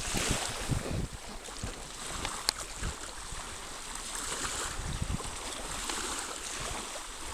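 Wind buffeting the microphone in gusts over a steady wash of surf, with one sharp click about two and a half seconds in.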